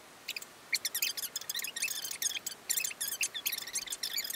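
Speech fast-forwarded many times over: a girl's voice sped up into a rapid stream of high, squeaky, chipmunk-like chirps.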